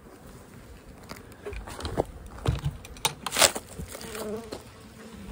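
Honey bees buzzing around an opened hive, with a few knocks and scrapes of wood and plastic as the bucket feeder and wooden cover are lifted off, the loudest about two to three and a half seconds in.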